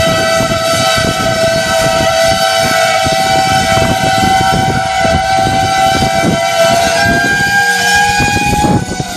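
Train air horn held in one long blast, several tones sounding together, over the rumble of the train running; the horn cuts off near the end.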